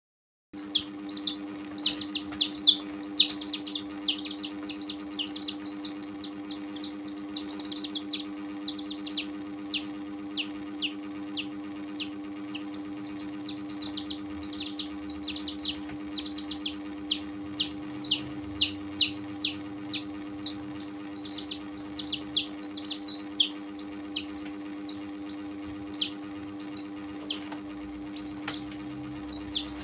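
A group of baby chicks peeping continuously: a rapid stream of high, downward-sliding cheeps, several a second, over a steady low hum.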